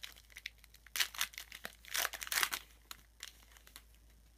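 Foil wrapper of a Topps Strata football card pack being torn open and crinkled by hand, in a string of quick rips and crackles that are loudest about one and two seconds in.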